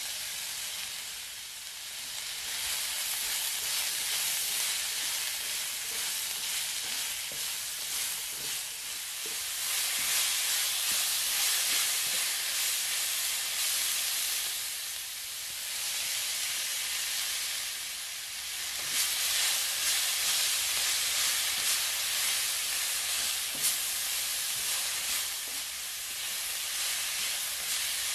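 Sliced cabbage, carrots, green peppers and onion sizzling as they are stir-fried in a hot wok and turned with a spatula. The hissing sizzle swells and eases in waves, with a few light knocks of the spatula early on.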